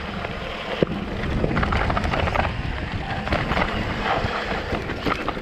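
Electric mountain bike descending a rocky dirt trail: tyres crunching over gravel and stones, with the frame and components rattling and knocking over bumps, mixed with wind rushing over the microphone.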